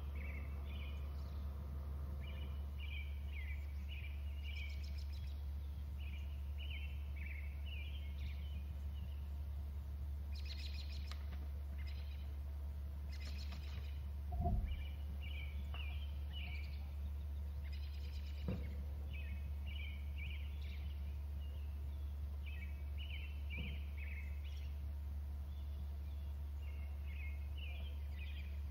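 A bird singing short, chirpy phrases over and over, every couple of seconds, over a steady low hum. There is one dull bump about halfway through.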